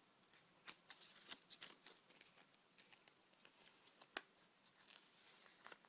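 Faint clicks and rustles of a small perfume box being opened by hand and the bottle taken out, with one sharper click a little past four seconds.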